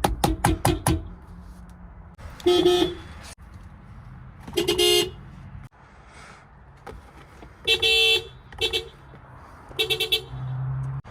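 Subaru car horns sounding in five separate honks, with pauses between. The first three are steady blasts of about half a second; the last two, near the end, are short taps.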